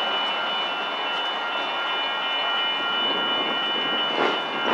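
Sacramento Regional Transit light rail train rolling through a grade crossing: a steady rushing rumble of wheels on rail, with several thin steady high-pitched tones over it, and a brief louder swell near the end.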